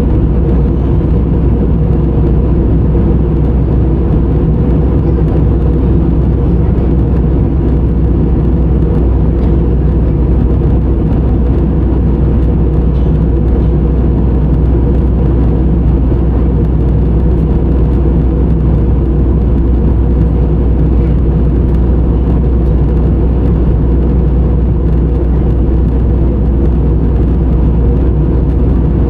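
Steady cabin noise of a jet airliner in flight: a constant low drone of engines and rushing air, unchanging throughout.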